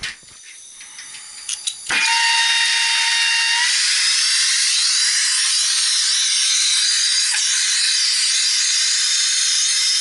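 Gas brazing torch lit about two seconds in, then hissing steadily as it heats the copper refrigerant line joints to unbraze them from the heat pump's compressor. It whistles briefly just after it lights; before that, light handling clicks and knocks.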